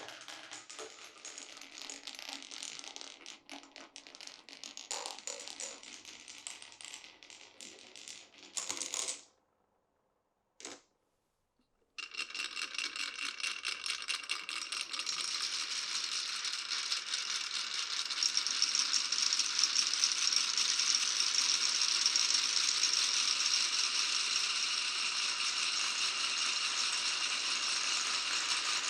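Glass marbles rolling and clattering along a wooden marble run, in scattered clicks at first. The sound cuts out about nine seconds in. From about twelve seconds a dense, continuous rattle of many marbles running together starts and grows louder.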